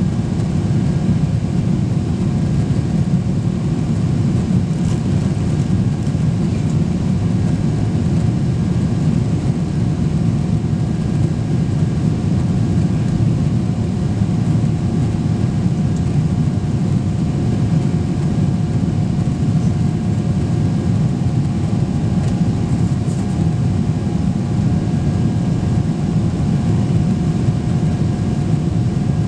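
Jet airliner cabin noise in flight: engines and airflow heard from inside the cabin, a steady dense rumble with a faint steady whine above it.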